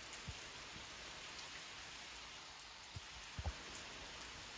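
Rain falling steadily, an even hiss, with a few soft low thuds, the loudest a pair about three and a half seconds in.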